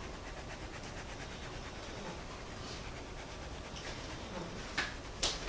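Fine ground black pepper being shaken from a shaker jar: a faint, steady rustling patter. Two small sharp knocks come near the end.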